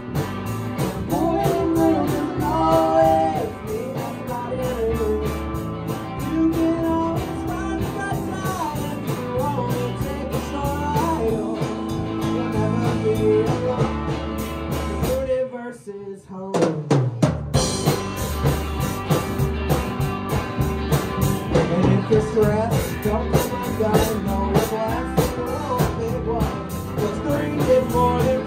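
Small rock band playing live: drum kit, bass and guitar with a sung melody. Slightly past halfway the music cuts out for about two seconds, then the full band comes back in with a loud hit.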